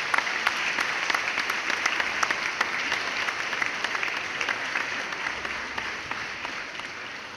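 Audience applause: a crowd clapping in a dense, steady clatter that tails off over the last couple of seconds.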